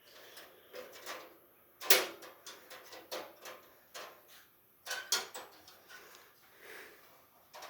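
Irregular handling noises: a series of light clicks and knocks, with sharper knocks about two seconds in and around five seconds in.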